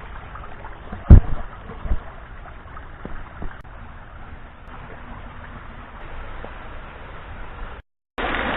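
Small waterfall and creek running steadily, with a loud thump about a second in and a couple of softer knocks after it. The sound cuts out briefly near the end.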